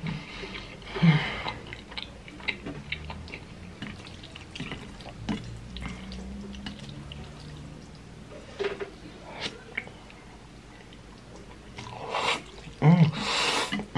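Close-up eating of spicy ramen noodles: wet chewing and small mouth and chopstick clicks as the noodles are stirred in a glass dish, then a loud slurp of noodles about a second before the end.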